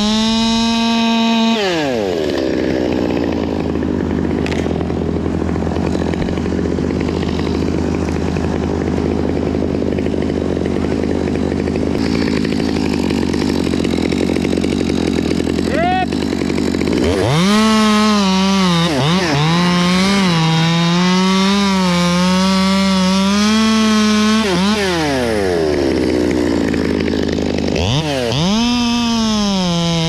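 Two-stroke top-handle chainsaw cutting through sycamore limbs. It runs at full throttle through a cut, then drops to idle for about fifteen seconds. After a brief blip it revs up for another cut lasting about seven seconds, its pitch wavering under load. It falls back to idle, then revs into a third cut near the end.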